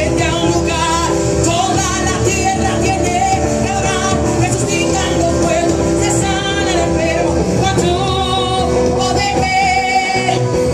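Live evangelical worship band playing loudly through a powerful outdoor PA system: women and men singing over guitar, drums and bass.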